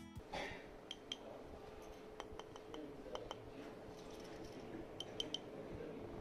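Faint scattered clicks and light clinks as the Suunto KB-14 compass's anodized light-alloy housing is handled and turned over in the fingers, coming in small clusters of two or three, over low room tone with a faint steady hum.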